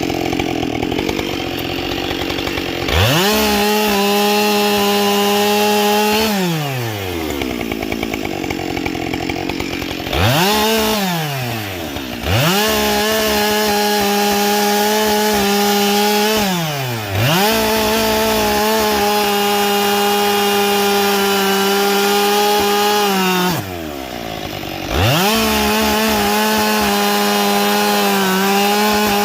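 Husqvarna 572XP two-stroke chainsaw, fitted with carbide saw chain, revved up to full throttle and held there for several seconds at a time, falling back to idle in between, four times over. The tags point to the saw working through wood during these full-throttle stretches.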